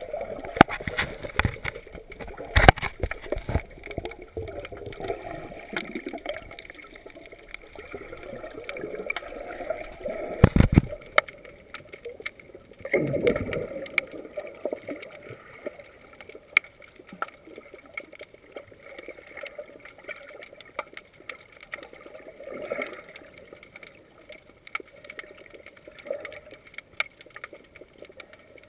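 Muffled underwater sound heard through a GoPro's waterproof housing: a low gurgling wash of water with scattered clicks and knocks, the sharpest about two and a half seconds in and about ten seconds in, and a brief whooshing surge a little after the middle.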